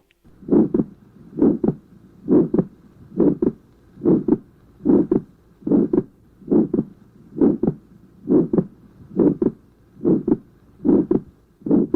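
Heart sounds over the pulmonary area in an atrial septal defect: a harsh ejection systolic murmur with wide fixed splitting of the second heart sound. The beats come steadily at about seventy a minute.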